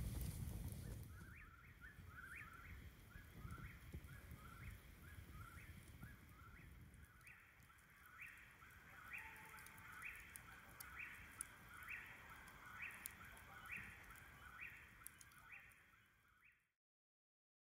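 A bird calling over and over in a steady rhythm, a rising note about once a second, over the faint crackle of a dying campfire; the sound cuts off near the end.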